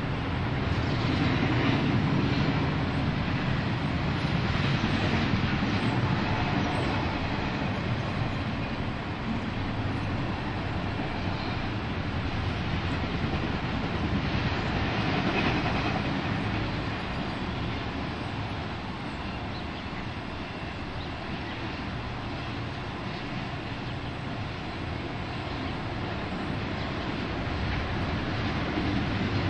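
Freight train cars rolling past on the rails: a steady rumble and rattle of wheels on track as intermodal containers and trailers on flatcars go by, easing somewhat in the middle and growing louder again near the end.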